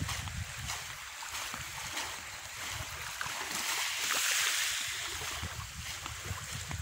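Small waves lapping and washing on a calm beach, with a hiss that swells about halfway through. Wind rumbles on the microphone underneath.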